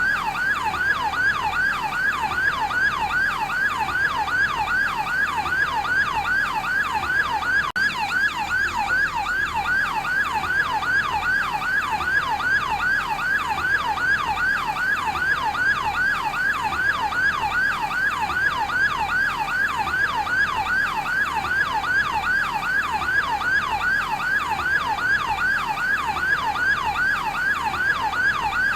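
Yelp siren of a fire department's advanced life support ambulance, its pitch sweeping up and back down in quick cycles of about three a second, loud and unchanging. There is a momentary break about eight seconds in.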